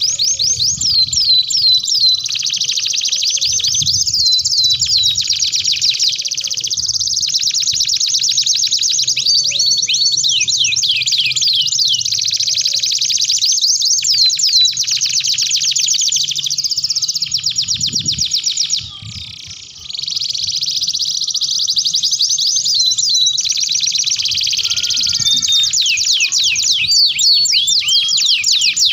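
Domestic canaries singing a long, continuous song of rapid trills and quick downward-sweeping whistles, with a short break about two-thirds of the way through.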